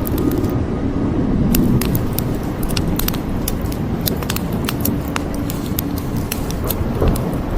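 Wood fire crackling, with many irregular sharp pops and snaps over a steady low rumbling noise.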